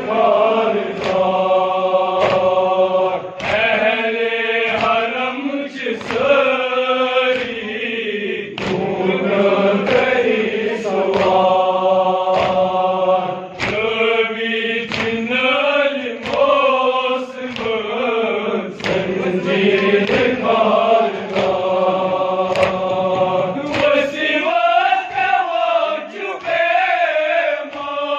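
A group of men chanting a Kashmiri nawah, a Muharram mourning lament, in unison, with sharp slaps about once a second from chest-beating (matam) keeping the beat.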